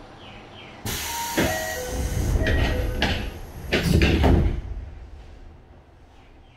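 Mechanical noise from the standing Tokyo Metro 7000 series train: about a second in, a sudden loud hiss of compressed air, with several sharp clunks and a heavy low rumble, fading away after about four seconds.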